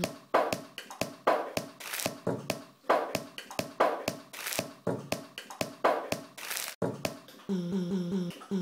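Beatbox-like percussion, a string of irregular drum-like hits about two to three a second. In the last second they give way to a short run of pulsing, pitched tones.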